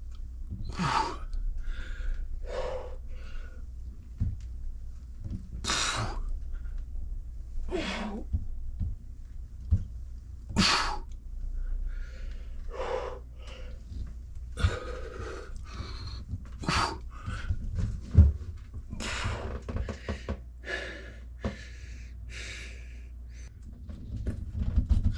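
A man breathing hard during pull-ups on a wall-mounted chin-up bar: forceful puffs and gasps of breath every second or two, over a low steady hum. A single dull thump about eighteen seconds in.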